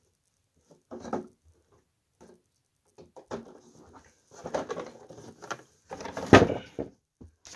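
Handling noise close to the microphone: scattered knocks and rustles as RC cars are moved about on carpet, with a louder thump about six seconds in.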